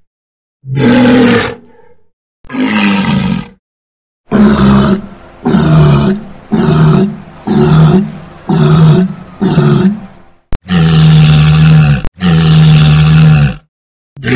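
Walrus calling: two separate calls, then six short calls in quick succession about a second apart, then two long calls held at a level pitch near the end.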